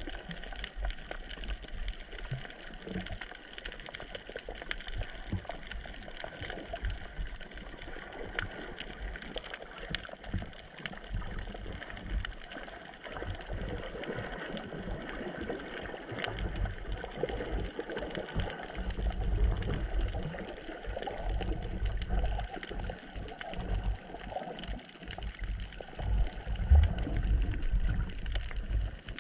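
Underwater ambience picked up by a handheld camera in its waterproof housing: muffled water noise with uneven low rumbles as water moves past the housing while the diver swims, and many small scattered clicks.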